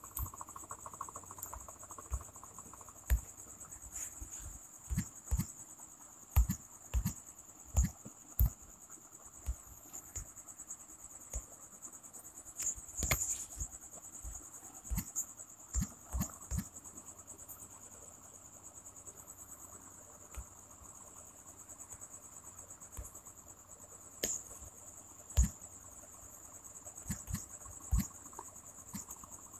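A steady high, even cricket trill, with irregular sharp taps of a fingertip on a phone's touchscreen as it types on the on-screen keyboard. The taps come in runs and are the loudest sounds.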